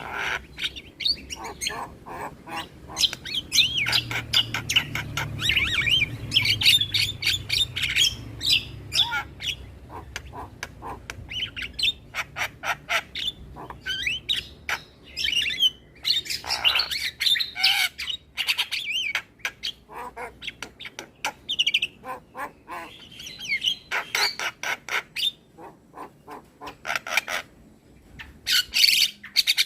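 Javan myna (jalak kebo) singing: a busy, continuous stream of chirps, squawks, whistled notes and fast clicking rattles, with a couple of brief pauses.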